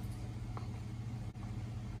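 Steady low machine hum with a few overtones, with a faint light click about halfway through.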